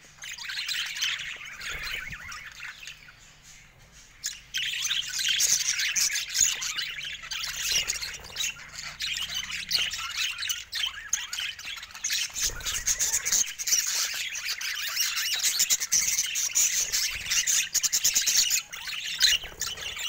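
A flock of budgerigars chattering, chirping and squawking together. The chatter is thinner for the first few seconds, then from about four seconds in it becomes a dense, louder chorus.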